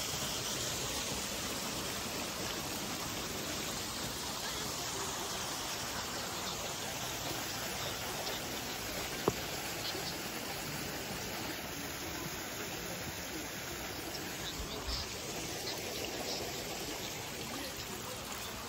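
Steady rush of running water in a narrow stone channel, with one sharp click about nine seconds in.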